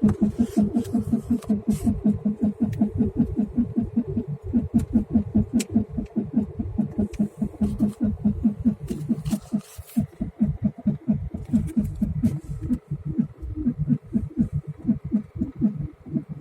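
Peugeot 205 1.8 diesel four-cylinder engine running, with a rapid, even, rhythmic pulsing and occasional sharp clicks: the suspect noise the owner is trying to identify.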